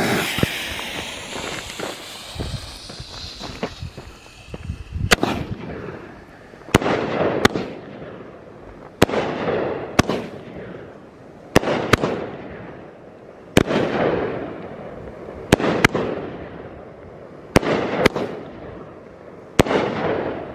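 Outlaw Pyrotechnics 'Showtime' 500-gram, 20-shot fireworks cake firing. Its lit fuse hisses for about four seconds. Then shots go off one at a time, a sharp bang every second or two, some in quick pairs, each with a short fading tail.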